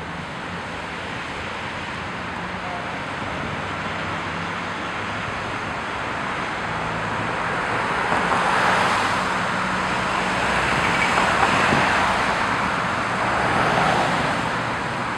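City street traffic picked up by a DSLR's built-in microphone: a steady hum of cars and tyres on the road. It swells three times in the second half as cars pass close.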